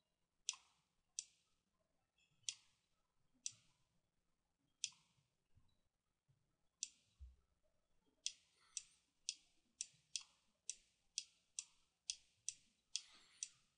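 Computer mouse clicking: single sharp clicks. The first few come a second or more apart, then from about eight seconds in they come about twice a second.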